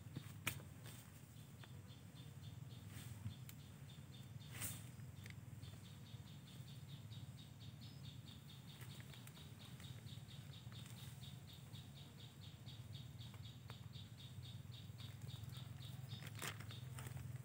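Faint rustling and crinkling of a plastic bag as termite mushrooms are handled and packed into it, with a few sharper crackles.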